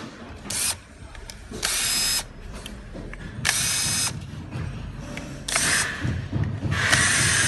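Electric screwdriver whirring in five short bursts, each about half a second long, driving screws into the plastic housing of a yellow power tool.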